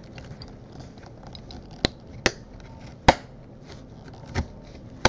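Sharp little clicks and scratching from a small tool and fingers working a circuit board and its wires into a Laing DDC pump's plastic housing. There are about five clicks, the loudest about three seconds in.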